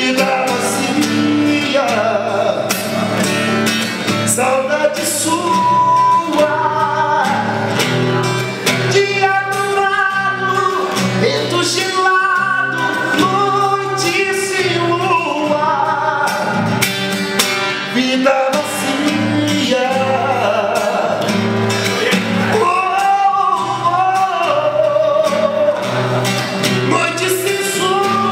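A man singing live while strumming a steel-string acoustic guitar.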